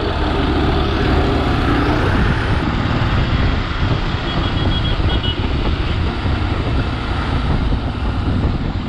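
Steady engine and road noise of a motorcycle under way, with wind rushing on the microphone, dense and unbroken.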